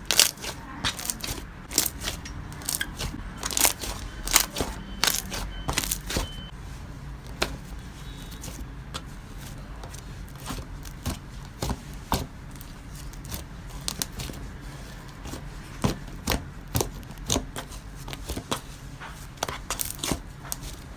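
Slime being squeezed and stretched by hand, giving irregular sharp clicks and sticky pops, a few each second.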